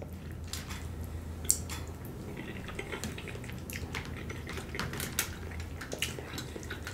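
Metal fork scraping and clicking against a plastic takeout container while scooping up rice, with many short sharp clicks throughout, the loudest about a second and a half in and again about five seconds in.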